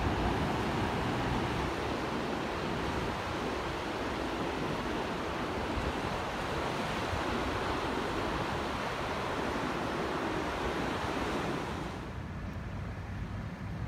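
Ocean surf breaking and washing up the beach in a steady rush; about twelve seconds in it cuts off to a quieter background with a faint low hum.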